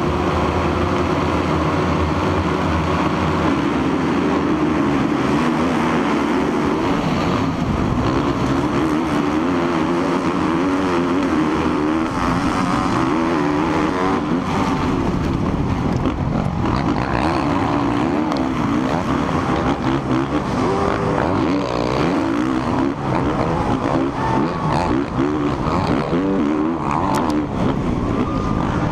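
Onboard sound of a Suzuki RM-Z450 four-stroke motocross bike at full race pace, its engine revving up and dropping back through gear changes, with other race bikes close by.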